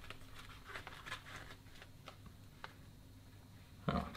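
Plastic Blu-ray keep case being handled and closed: faint scattered clicks and rustles, with one louder knock near the end.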